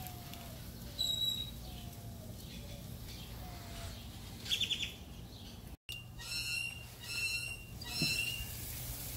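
Birds chirping and calling: scattered short high chirps, a quick trill about halfway through and a run of sharper chirps near the end, over a faint steady low hum.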